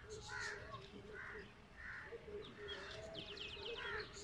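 Crows cawing repeatedly outdoors, each caw short and rough. About three seconds in, a smaller bird gives a quick run of high, falling chirps.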